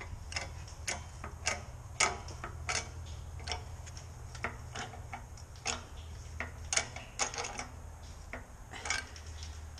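Small shop press being worked against a tractor engine block: a string of sharp clicks at an irregular pace of about one to two a second, over a steady low hum.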